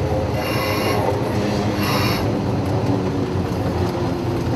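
Wheels of a 1950 Decauville railcar squealing on the rails twice, briefly about half a second in and again around two seconds in, over steady running and rail noise heard from inside the driving cab.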